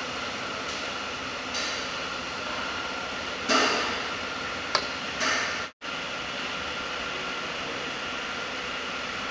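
Steady blowing hiss and hum of a heat gun running. Over it come a few short clatters of tools and plastic being handled, the loudest about three and a half seconds in. The sound drops out completely for a moment a little after halfway.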